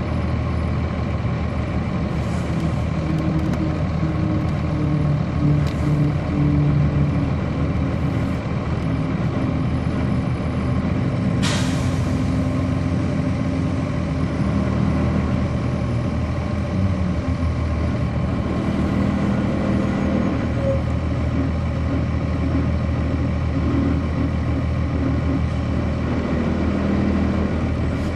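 The Cummins ISC diesel engine of a 1999 Nova Bus RTS transit bus running, heard from on board, its pitch stepping up and down as the bus drives. A short, sharp hiss of air about eleven and a half seconds in, typical of the air brakes.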